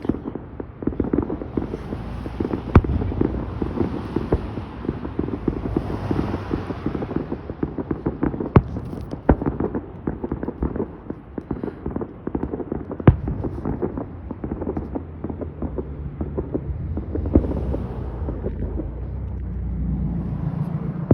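Fireworks display heard from a distance: scattered sharp bangs every few seconds over a continuous crackling and low rumble.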